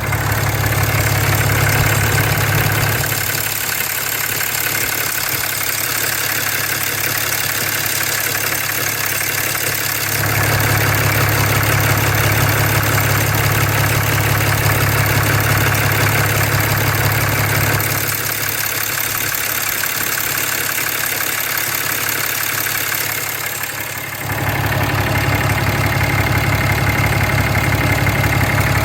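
6.7-litre Cummins inline-six turbo-diesel idling with a rapid ticking from the area of the EGR. Its deep hum fades out twice, for several seconds each time, while the engine keeps running.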